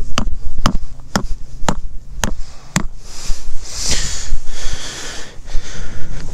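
Tent pegs being hammered into the ground: sharp, evenly spaced knocks about two a second, stopping about three seconds in. A rustling hiss follows, over a low rumble.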